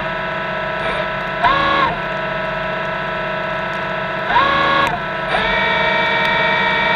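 Electric thruster motors of an underwater robot whining steadily in several tones. They spin up three times: briefly about a second and a half in, again past four seconds, and for a longer push from about five seconds in. Each time the whine rises in pitch and gets louder, then drops back.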